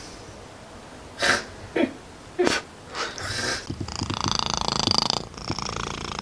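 Domestic cat purring close up, a dense, finely pulsing sound that starts about four seconds in. Before it come three short, breathy noises.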